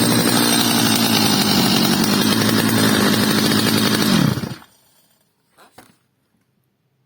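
Freshly repaired Stihl MS 230 two-stroke chainsaw idling steadily, then switched off a little over four seconds in, its pitch dropping quickly as the engine stops. Two faint clicks follow.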